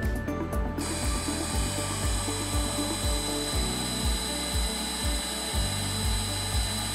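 Refill friction stir spot welding machine's rotating tool starting up about a second in, with a steady high whine and hiss as it presses into the clamped metal plates, over background music with a steady beat.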